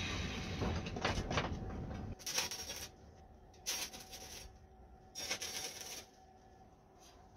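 Electric arc welding on sheet steel: the arc crackles and sputters for about two seconds, then strikes three more short welds of under a second each.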